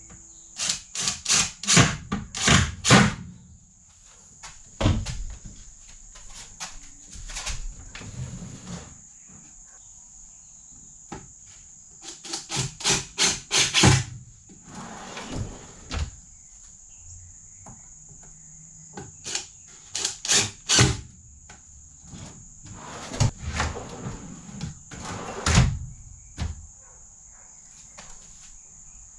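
Clusters of sharp knocks and rattles as a wooden drawer on metal drawer slides is worked into place, with a faint steady high whine underneath.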